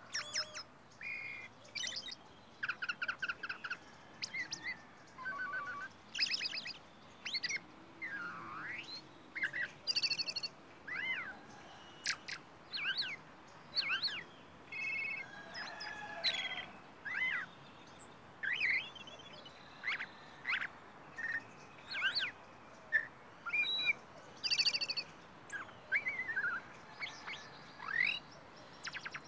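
Caged songbird singing a varied song of short phrases, one every second or so: clear whistles that glide up and down, mixed with quick trills and rapid repeated notes, with brief pauses between.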